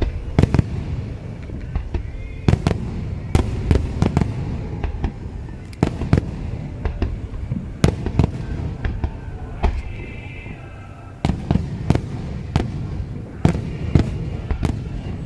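Aerial firework shells bursting in quick, irregular succession: sharp cracks and booms, roughly one or two a second, over a continuous low rumble of overlapping reports. There is a short lull about two-thirds of the way through before the bursts resume.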